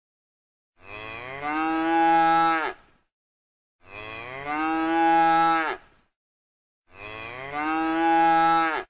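Cow mooing three times, each moo about two seconds long, starting low, rising in pitch, then held and cut off sharply. The three moos are identical, the same call repeated.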